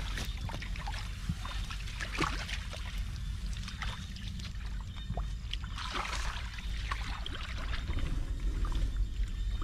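A small engine running steadily in a low drone, with water splashing and trickling over it at irregular moments.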